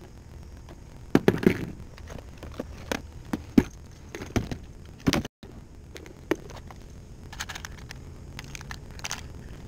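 Light clicks and hollow knocks of fishing tackle being handled in a plastic kayak, as hooks and rod are worked by hand and bump the hull. The loudest knocks come in the first half; after a brief dropout about halfway only faint small clicks remain.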